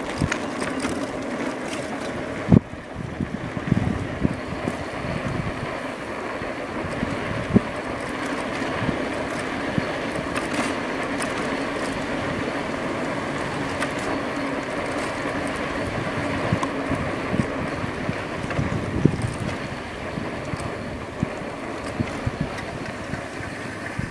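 Riding noise of an A2B Metro electric bike at speed: a steady hum from the drivetrain and tyres, with wind on the microphone. Scattered sharp knocks and rattles come through, the strongest about two and a half seconds in.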